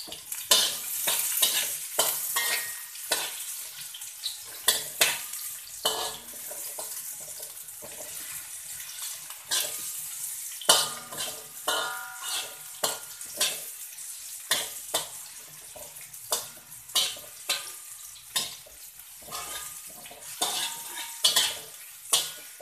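Slotted metal spatula scraping and clacking against a metal wok in irregular repeated strokes as sliced red onion and garlic are stir-fried in oil, with a steady sizzle underneath. The onion and garlic are being fried until wilted.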